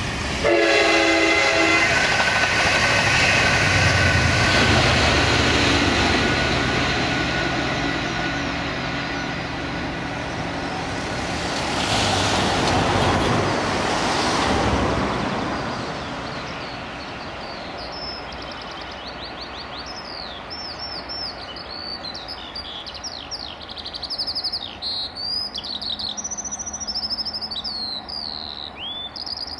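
Locomotive-hauled passenger train passing: a short horn blast about half a second in, then loud engine and wheel noise that swells again around twelve to fifteen seconds and fades away. Birds chirp once the train has gone.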